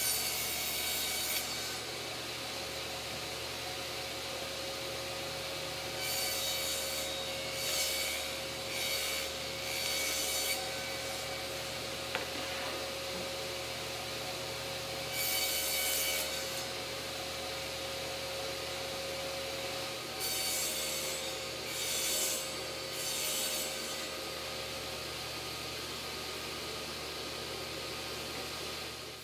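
Table saw running steadily, with several separate passes of cutting noise as half-inch plywood door panels are fed through the blade and trimmed to size, shaving off thin strips.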